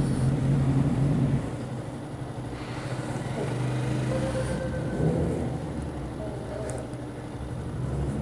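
Motorcycle engines idling, a steady low running note that drops in level about a second and a half in, with a brief rise around five seconds in.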